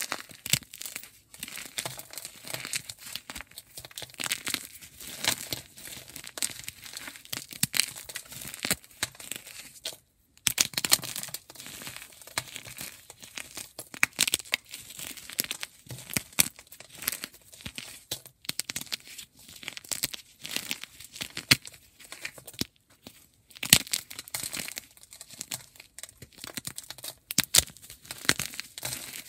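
Blocks of gym chalk (magnesium carbonate) being broken up close to the microphone: a dense run of crisp crackles and crunches, with a short break about ten seconds in.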